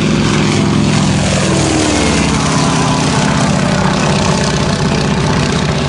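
Biplane's piston engine and propeller flying a low pass, a steady loud drone that drops in pitch about one and a half to two seconds in as the plane goes by.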